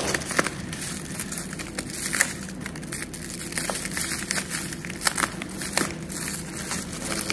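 Bubble wrap and plastic film crinkling and crackling in irregular sharp crackles as a box cutter slits open the wrapping of a parcel.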